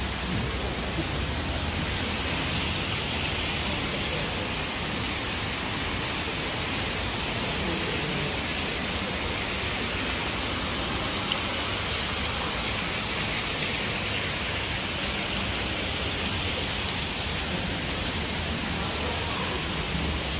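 Steady hiss of splashing water from indoor fountains pouring into a pool.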